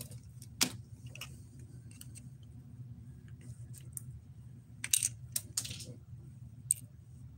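Small loose pieces of model scenery material clicking and rattling on a plastic display turntable as they are picked up by hand: scattered sharp clicks, the loudest about half a second in and a quick cluster around five seconds in, over a steady low hum.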